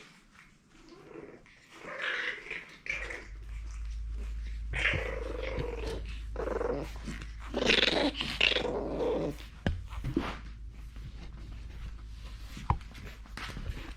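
French bulldog puppy growling in several short bouts, the longest and loudest a little past the middle.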